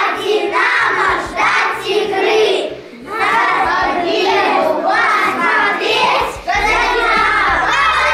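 A group of young children chanting a fan chant together in unison, loud and rhythmic, with some backing music.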